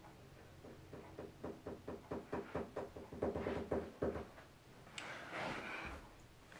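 Hands rummaging while searching for a lost small plastic piece: a run of quick knocks and clicks for about three seconds, then a sharp click and a short rustle.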